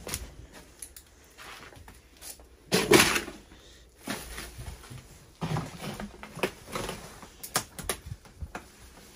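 Irregular knocks, clicks and rustles of someone moving through a cluttered kitchen and handling things on the counters and in the cabinets, with one louder clatter about three seconds in.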